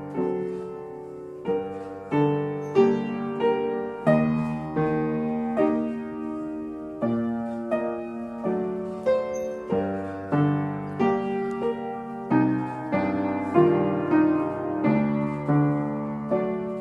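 Piano playing a slow, even ballet-class accompaniment: struck chords one after another, each ringing and fading before the next.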